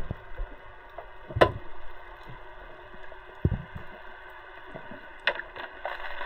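Muffled underwater sound picked up by a submerged camera: a steady low hiss with a sharp click about one and a half seconds in, a dull thump in the middle, and another click near the end.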